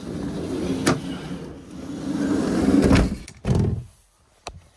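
Rustling and knocking, then a heavy thud about three and a half seconds in, after which it goes quiet: the Mercedes Sprinter van's sliding side door being shut.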